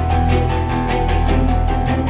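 Background music with a steady quick beat, playing as an outro.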